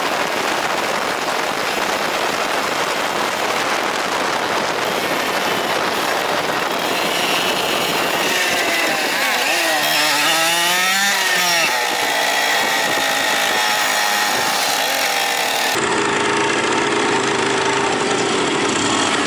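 Moped engines running on the road, with heavy wind noise on the microphone. Their pitch wavers up and down for a few seconds midway, and the sound changes abruptly near the end.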